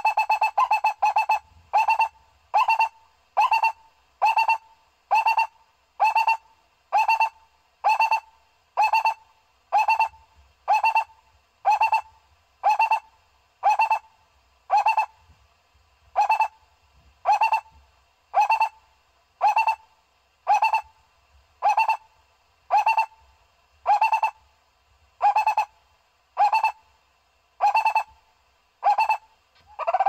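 Barbet calling: a long series of short single notes repeated evenly, about three every two seconds, coming quicker during the first second or two.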